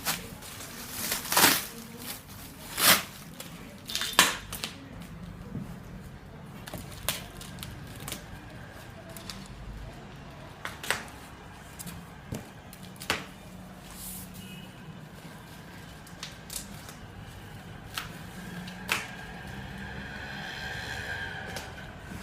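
Packaging being handled while a microwave oven is unboxed: irregular sharp crackles and clicks, with a longer scraping sound near the end.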